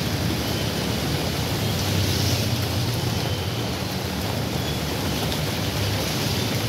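Steady rushing noise with a low hum underneath, without distinct events.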